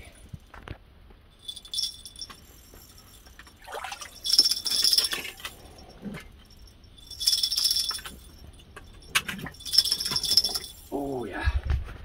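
Ice-fishing reel's drag buzzing in several bursts of about a second as a big lake trout pulls line off: a fast clicking with a high ringing edge.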